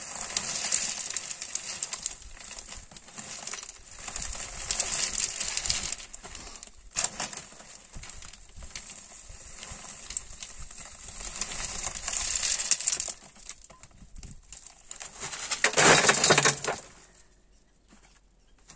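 Ballast stones clinking and rattling as they are gathered by hand into a woven plastic sack, with the sack's plastic rustling. About sixteen seconds in, a short louder clatter as the filled sack of stones goes into the metal wheelbarrow.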